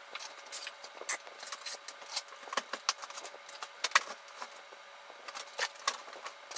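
Irregular clicks, clinks and rattles of small household items being handled and taken out of a kitchen cabinet, with one sharp knock about four seconds in.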